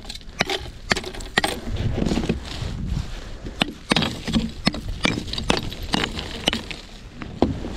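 A run of sharp knocks and clinks of hard objects at an uneven pace, one to three a second, over a low rumble.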